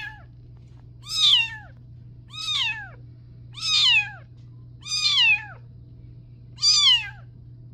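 Young tabby kitten meowing over and over, short high-pitched calls about every second and a quarter, each one falling in pitch.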